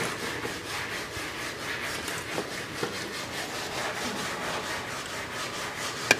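Hand rasp scraping back and forth over a carved foam fish body in a quick, even run of strokes. A sharp click near the end.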